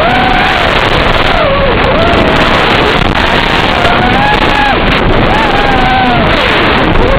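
QAV-R220 racing quadcopter's motors whining, the pitch rising and falling several times as the throttle changes, over heavy wind noise on the microphone.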